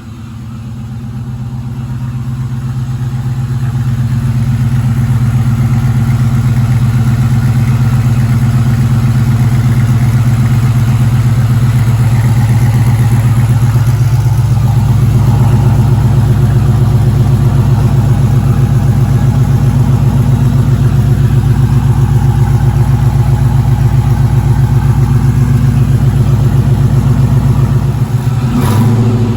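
LS V8 running steadily at idle through a 3-inch Hooker BlackHeart header-back exhaust and long-tube headers, a low, even engine note that grows louder over the first few seconds and then holds.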